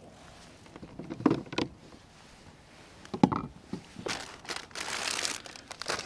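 A few sharp knocks, then a plastic bag crinkling and rustling as it is handled, for about a second and a half from about four seconds in.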